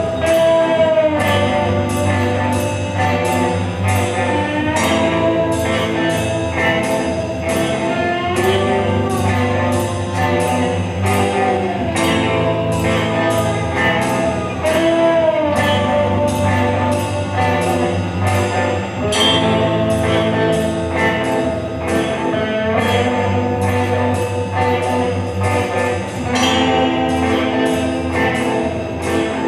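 Live band playing: electric guitar, bass guitar and drum kit with a steady beat, and a held, bending melody line over it.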